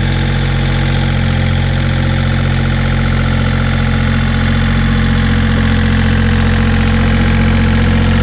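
John Deere compact utility tractor's diesel engine running steadily as the tractor drives, growing slightly louder as it comes closer.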